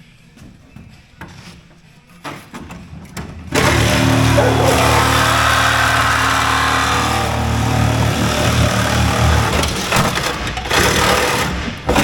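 A power tool starts about three and a half seconds in and runs loud and steady for about seven seconds, with a low hum under a hiss. A few light clicks and knocks come before it.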